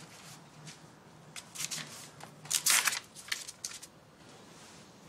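Pages of a small notebook being turned and handled, a few quick papery rustles and crackles in clusters, the loudest about two and a half seconds in.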